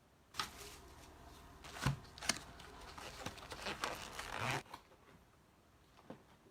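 Trading card packaging being torn open and crinkled: a rustling, tearing noise with several sharp cracks, stopping suddenly about four and a half seconds in.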